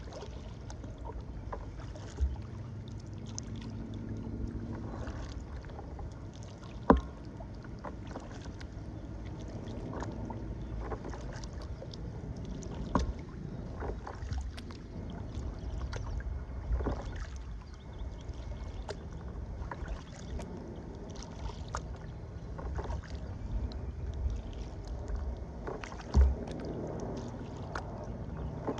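Kayak paddling: the paddle blades dipping and splashing in the water stroke after stroke, over a steady low rumble of wind on the microphone. A few sharp knocks stand out, the loudest about seven seconds in and again near the end.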